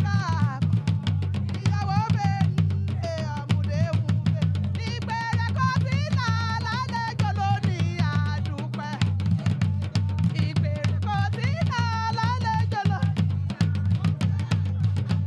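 A woman sings a lively melody into a microphone over a driving drum beat and a steady bass line, all amplified through loudspeakers.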